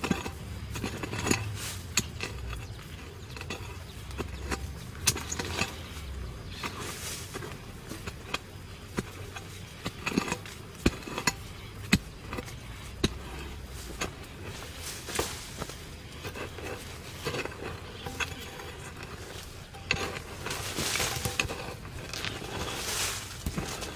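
A hand hoe chopping and scraping into soil around cassava roots: irregular sharp knocks of the blade, with longer scrapes of loosened earth about seven seconds in and again near the end.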